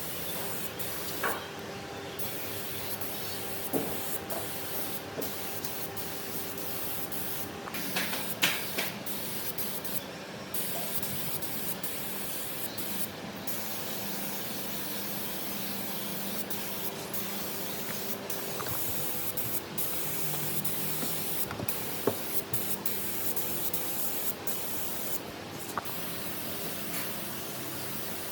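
Compressed-air gun hissing in long steady passes, cut off for brief moments now and then as the trigger is released, over a faint steady hum, with a few light clicks.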